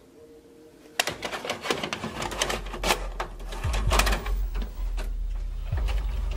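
VHS cassette being pushed into a TV/VCR combo: a run of mechanical clicks and clatter from the tape-loading mechanism starting about a second in, with a low hum building up underneath.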